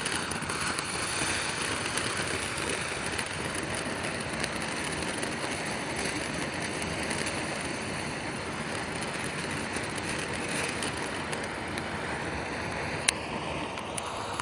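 Ground fountain fireworks spraying sparks with a steady hiss and dense fine crackle, with one sharp pop near the end.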